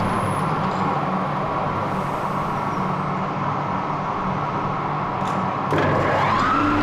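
Lathe motor spinning up near the end: its whine rises in pitch over about a second and then holds steady at running speed. Before that, a steady machinery hum with the lathe stopped.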